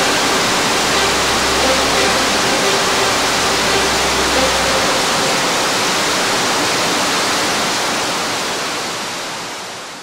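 Heavy, steady rush and splash of a 30 m waterfall swollen with snowmelt, pouring onto rocks; it fades out gradually over the last few seconds.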